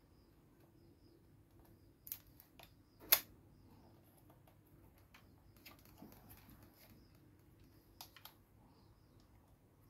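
Hard plastic clicks and knocks as a toy transformation belt buckle (a replica Kamen Rider Amazons Driver) is handled and turned over, its grip handle twisted. The clicks come in small groups, the loudest about three seconds in and two more near the end.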